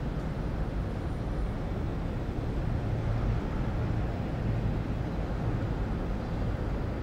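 City street traffic: a steady low rumble of vehicles with no distinct pass-by or horn standing out.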